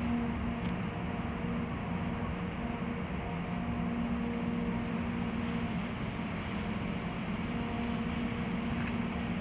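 JNR Class EF64 1000-series electric locomotive moving slowly, a steady mechanical hum with a few held tones that swell and fade.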